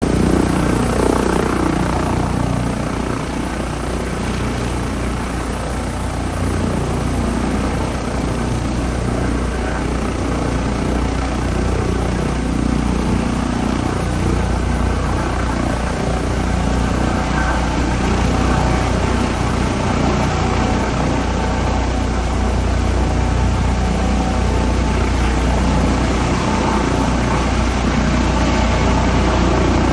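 Helicopter running steadily, its rotor and turbine giving a continuous low beat with a broad rushing noise over it.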